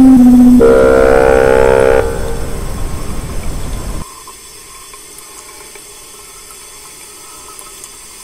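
Loud electronic drone: a held low tone gives way to a buzzy multi-tone chord that breaks into a noisy fade, then cuts off about four seconds in to a faint steady static hiss.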